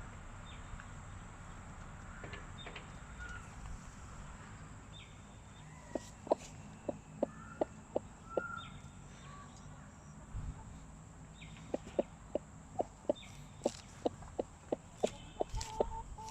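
Broody Sanhuang hen on her nest giving short, sharp clucks, about three a second, in two runs: one about six seconds in and a longer one from about twelve seconds in.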